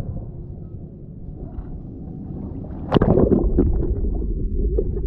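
Underwater water noise: a muffled low rumble with bubbling and small clicks, rising to a sudden loud rush of water and bubbles about three seconds in, then a denser bubbling rumble around a person crouched on the sandy harbour bottom.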